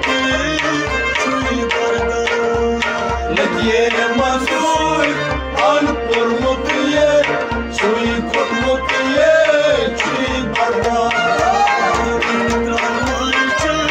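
Sufi song music: tabla playing a steady, even rhythm with deep bass strokes under a held melodic line that now and then bends in pitch.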